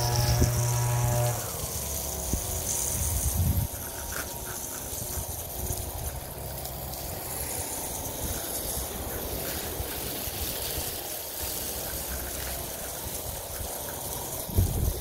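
Water spraying from a garden hose onto soil and plants, a steady hiss. A steady mechanical hum is heard for about the first second and then stops; a few handling thumps come near the end.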